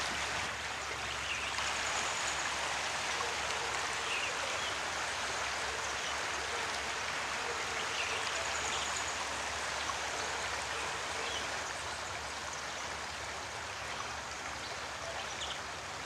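Shallow river flowing and rippling over rocks, a steady rushing of water.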